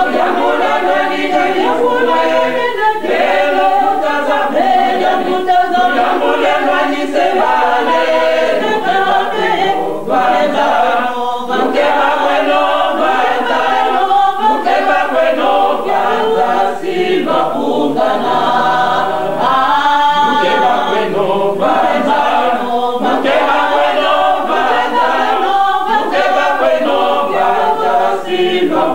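Church choir singing a hymn a cappella, many voices together with no instruments. The recording is an old cassette, so the sound is dull and thin in the highs.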